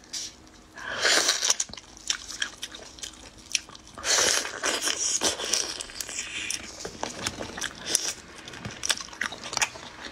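Close-miked eating of raw chili-marinated shrimp: two longer wet sucking noises, about a second in and again around four seconds, then chewing with many small crunches and clicks of shell.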